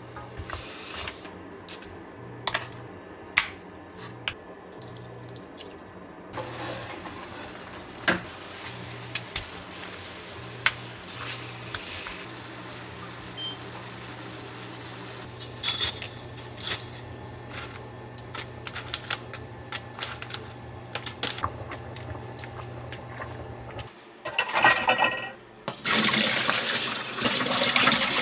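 Beef short ribs sizzling in a stainless frying pan, with scattered clicks of metal tongs, over a low hum that pulses on and off and then holds steady. About 24 seconds in, a kitchen tap starts running hard over noodles in a mesh colander. The water is the loudest sound.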